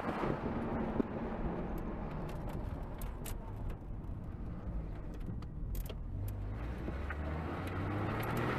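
Car engine and road noise heard from inside the cabin while driving, with a few faint clicks; the engine's pitch climbs in the last few seconds as the car accelerates.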